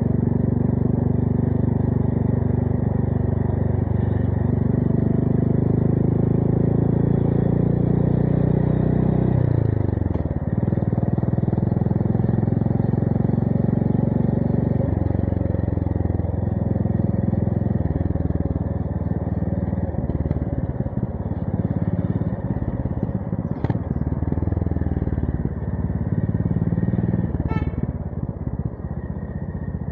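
Honda GB350S single-cylinder engine running through a Miller Spitfire slip-on exhaust on the move, holding steady revs, then falling sharply in pitch about ten seconds in as the bike slows, and pulling again at changing revs after that.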